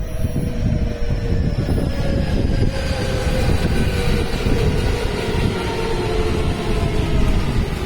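JR West electric commuter train running through the station: a steady rumble of wheels on rail with the whine of its traction motors slowly falling in pitch as it slows.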